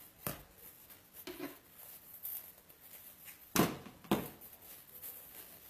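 Ribbon being wrapped around a wire wreath frame by hand: a few short rustles and taps, the loudest about three and a half seconds in, with another half a second later.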